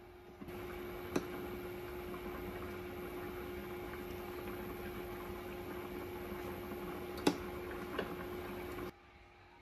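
Pot of greens in water boiling on an induction cooktop: a steady bubbling hiss with a steady hum under it, and three sharp clinks. The sound cuts off abruptly near the end.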